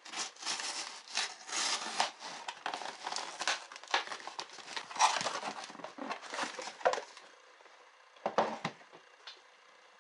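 A knife cutting through the packing tape on a cardboard shipping box, then the tape tearing and the cardboard flaps scraping and rustling as the box is opened. After a quieter stretch there is a short knock a little past eight seconds.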